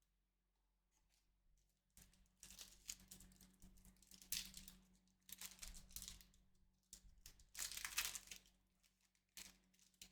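Foil wrapper of a Topps Chrome trading-card pack being torn open and crinkled, in several rustling bursts that start about two seconds in and die away near the end.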